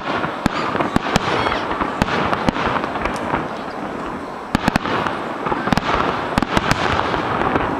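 Aerial firework shells bursting in quick, irregular succession: many sharp bangs and crackles over a continuous noisy wash.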